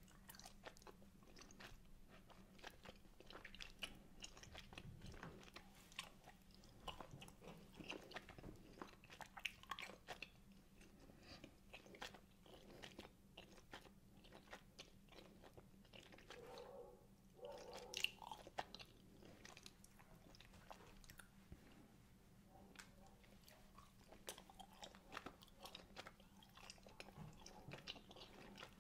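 Quiet, close-miked chewing of wine gums: a mouth working a firm gummy candy in many small irregular clicks, with one sharper click a little past halfway.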